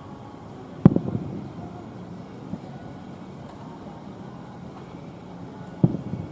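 Two aerial firework shells bursting about five seconds apart, each a sharp bang followed by a rumbling echo, over a steady low background noise.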